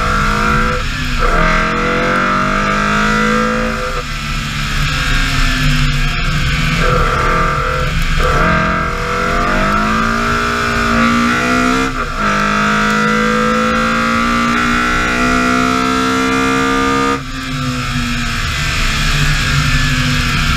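BMW E30 M3 rally car's four-cylinder engine accelerating hard up through the gears, its revs climbing and falling back at each of four upshifts, then a long pull in a high gear. About three seconds before the end the revs and level drop suddenly as the throttle is lifted, with steady road noise throughout.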